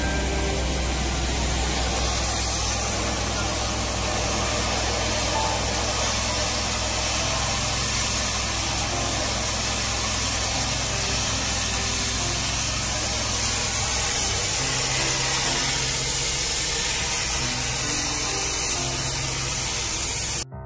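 Engine-driven high-pressure drain jetter running steadily, its engine humming under the hiss of water jetting from the nozzle. It cuts off suddenly near the end.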